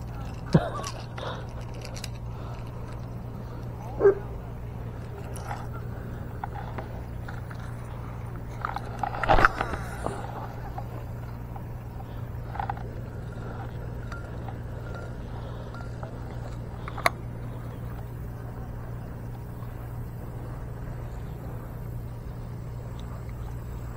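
A dog barking now and then, a few short barks several seconds apart, over a steady low hum.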